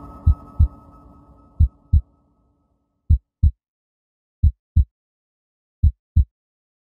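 Heartbeat sound effect: five double thumps, lub-dub, about one every one and a half seconds, over a fading low hum that dies out about two seconds in.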